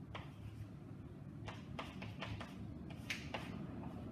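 Chalk writing on a blackboard: a series of short taps and scratches as the chalk strikes and drags across the board, most of them in the second half, over a steady low room hum.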